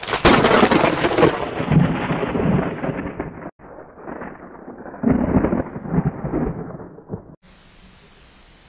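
Thunder sound effect: a loud crack of thunder rumbling away, cut short after about three and a half seconds, then a second rumble of thunder that swells and stops abruptly near the end, leaving a faint steady hiss.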